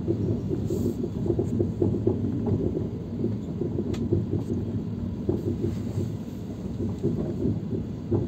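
Passenger train coach wheels running on the track, heard from inside the coach as a steady rumble with irregular rattling. The train is rolling slowly through a junction's many tracks, and there is a sharp click about four seconds in.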